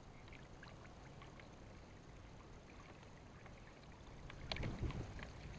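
Water sloshing and splashing close to the microphone, with small scattered ticks over a faint steady rush, then a louder splash about four and a half seconds in.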